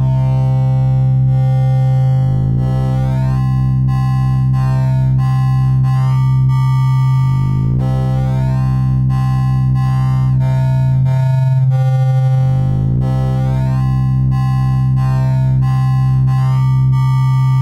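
Synthesized oscilloscope music: stereo waveforms built to draw shapes on an oscilloscope in X-Y mode while sounding semi-musical. A steady low tone holds under shifting higher notes, with pitch glides about two, seven and twelve seconds in.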